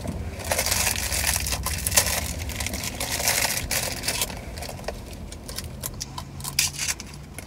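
Plastic fortune-cookie wrappers being torn open and crinkled by hand, a busy rustling for the first few seconds that thins out to lighter handling near the end.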